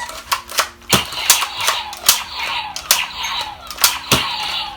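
Star Wars Nerf toy blaster being fired over and over, several sharp snaps at an uneven pace.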